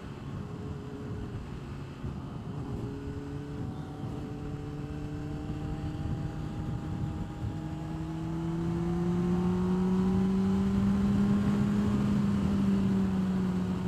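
Honda CBR600RR's inline-four engine running under way, its pitch climbing slowly. About eight seconds in it gets louder and the revs rise further as the throttle opens, then ease off slightly near the end, with a steady rush of wind noise throughout.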